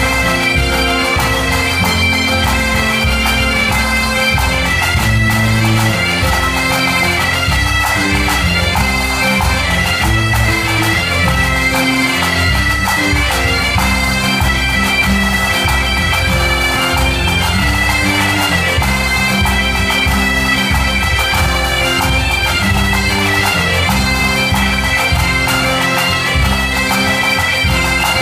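Asturian bagpipe band (gaites asturianes) playing a xiringüelu, an Asturian dance tune, in unison over steady drones, with a regular drum beat and guitar underneath.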